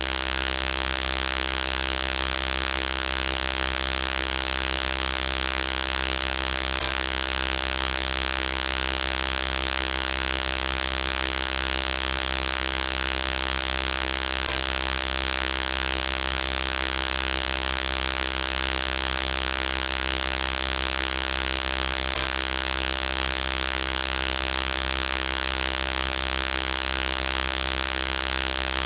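Synthesized robot sound effect: a steady electronic buzz held at one unchanging pitch over a hiss, with no words in it. It repeats as a loop about every seven and a half seconds.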